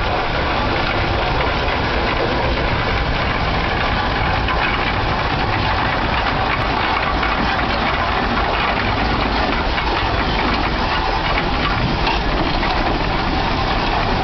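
Russell steam traction engine running as it drives along, a steady mix of steam exhaust from the stack and mechanical clatter from its gearing and steel-spoked wheels on gravel.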